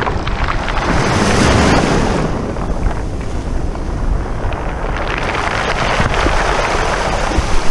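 Small waves washing into the shallows over a pebble beach, swelling and easing as they come in, with heavy wind buffeting on the microphone.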